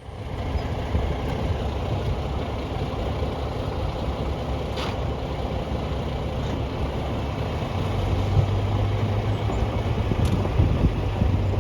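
Heavy diesel engine running steadily, a low rumble with a steady hum that strengthens about eight seconds in.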